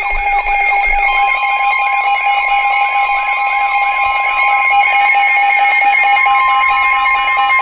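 Emergency Alert System attention signal: a loud, steady alarm tone from broadcast radio, joined about a second in by a NOAA Weather Radio warning tone from a second receiver. A wavering tone repeats beneath them about three times a second. Together they announce an incoming severe thunderstorm warning.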